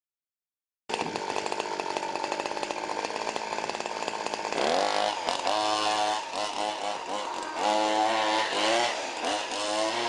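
Small two-stroke petrol engine of a 1/5-scale Baja RC buggy, starting about a second in with a steady buzz, then revving up and down again and again from about halfway as the car is driven.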